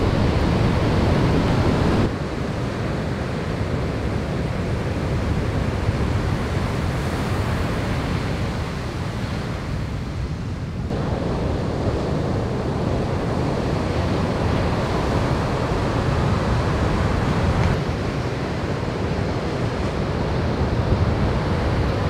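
Big ocean waves breaking and rushing whitewater, with wind noise on the microphone. The wash shifts abruptly in level a few times.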